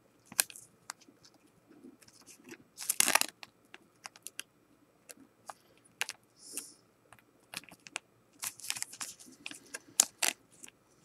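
A soft plastic card sleeve crinkling and a cardboard trading card ticking against it as the card is worked into a tight sleeve. It comes as scattered light clicks and short rustles, the loudest rustle about three seconds in.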